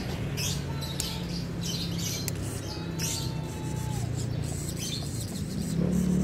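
Small two-stroke nitro engine of a 1/10-scale RC monster truck idling while it warms up, getting louder and a little higher in pitch near the end as the throttle is opened. Birds chirp over it.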